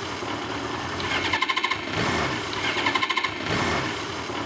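A car's starter motor cranking the engine over and over without it catching, in a pattern that repeats about every second and a half.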